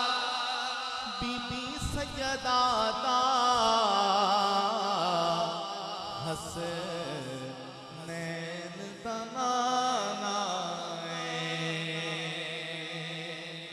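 A man's solo voice chanting a naat through a microphone, drawing out long ornamented notes that waver and turn in pitch. A steady low drone lies under the voice through the second half, and the singing fades toward the end.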